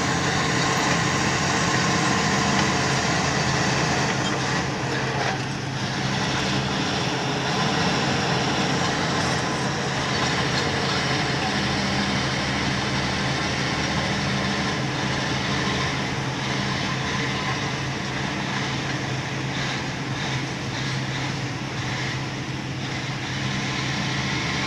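Komatsu D85A crawler bulldozer's diesel engine running steadily as it pushes a load of topsoil, with an even drone and no pause.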